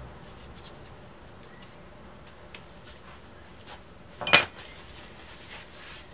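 Hard tools and parts being handled on a workbench during brace gluing: light scattered clicks, and one sharp clack with a brief ring about four seconds in.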